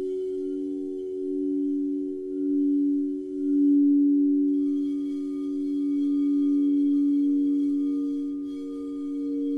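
Singing bowl sounding: a sustained hum of several low tones that wavers slowly in loudness and swells louder about four seconds in.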